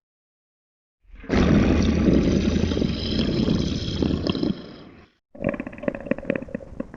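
Made-up dinosaur roar sound effect: a long, rough roar starting about a second in and lasting about four seconds before fading out. A rapid series of sharp clicks follows near the end.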